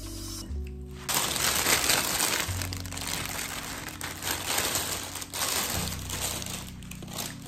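Clear plastic produce bag crinkling loudly as a bunch of Chinese chives is handled in it and pulled out, starting about a second in, over background music.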